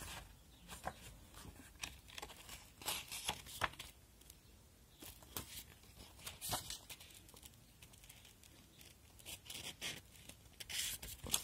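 Paper pages of a lyric booklet being turned and handled by hand: soft, irregular rustling and crinkling, louder near the end.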